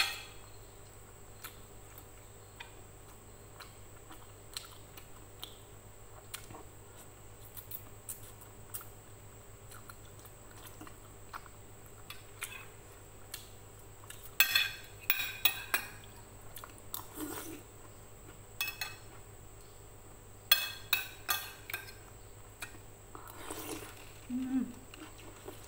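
Eating at a plate: a metal spoon and fork clink and scrape against a ceramic plate in scattered single taps, with two runs of quick clinking about halfway through and a few seconds later. Chewing and slurping of soup noodles fill the gaps.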